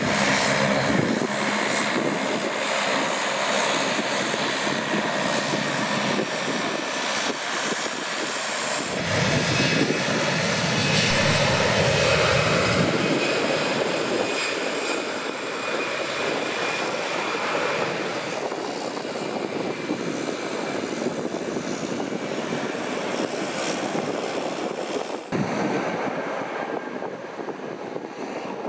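A Saab 340 twin turboprop taxis past, its engines running with a steady whine and propeller drone that is loudest and deepest about nine to thirteen seconds in as it passes closest. Near the end the sound changes abruptly to a more distant jet airliner's engines on the runway.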